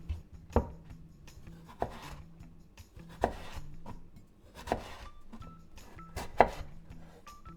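Knife chopping on a wooden cutting board: five sharp knocks about every one and a half seconds, each with a short scrape, the loudest near the end. Soft background music plays underneath.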